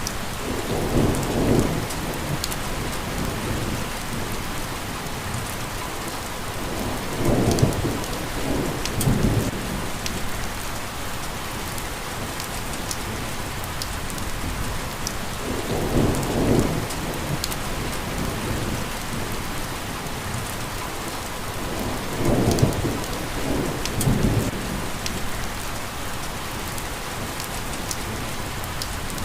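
Steady rain falling as an even hiss, with six brief low rumbles swelling up through it, mostly in pairs several seconds apart.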